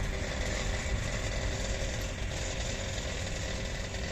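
Diesel locomotive engine running steadily with a low rumble.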